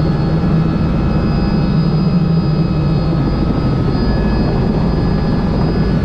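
Robinson R66 helicopter's turbine engine and main rotor running steadily during takeoff, a continuous low thrum with a steady high whine over it.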